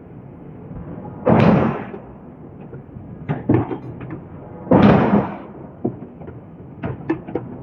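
Hydraulic forging hammer striking a steel billet: two heavy blows about three and a half seconds apart, each with a short ringing tail, with lighter sharp knocks in between and near the end.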